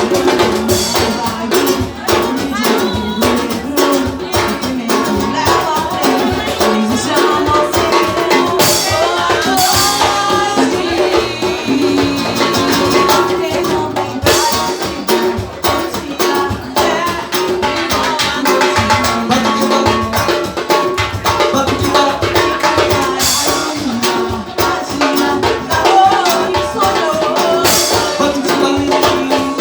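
Brazilian popular music played by a band, with dense, steady percussion under pitched instruments.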